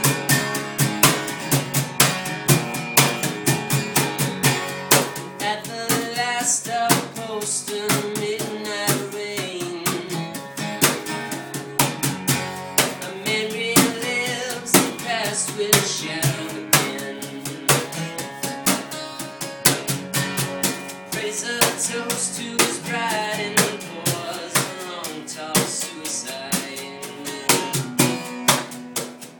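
Live acoustic rock band playing a song, recorded on a phone: acoustic guitar over a drum kit keeping a steady beat with rim clicks, and a sung melody line weaving in and out.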